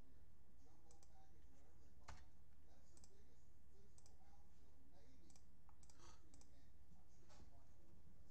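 Faint, irregular clicks of a computer mouse and keyboard, roughly one a second, over a low steady hum.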